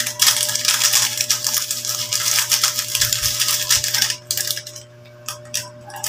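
Small plastic snack sachet crinkling and crackling as it is squeezed and worked open by hand, a dense crackle for about four seconds, then only a few soft clicks.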